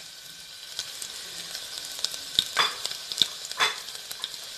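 Chopped garlic and cumin seeds sizzling in hot oil in a pressure cooker: a steady crackling hiss, with a few brief scrapes of a spatula stirring them.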